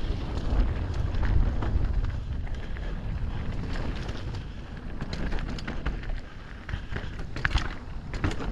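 Wind buffeting the microphone over the rumble of an Amflow PX Carbon electric mountain bike riding down a rough trail, with scattered sharp clatters and knocks from the bike and the ground.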